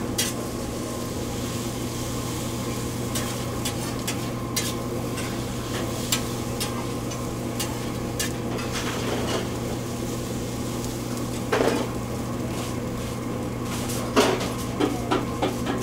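Machacado and scrambled eggs sizzling on a flat-top griddle while a metal spatula scrapes and taps against the steel plate in irregular clicks, with a couple of louder knocks, over a steady low kitchen hum.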